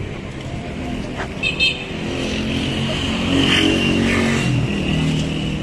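A motor vehicle driving past on the road, its engine getting louder in the middle and then easing off, over steady traffic noise.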